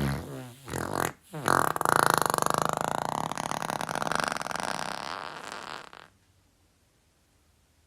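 Fart sound effects: two short farts, then a long buzzing fart lasting about four and a half seconds that slowly fades out.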